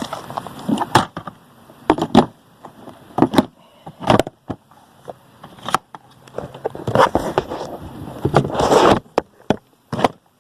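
Knocks, clacks and scraping of hard objects being handled and set down in a toolbox. The clacks are irregular, and there is a longer scrape and rattle near the end.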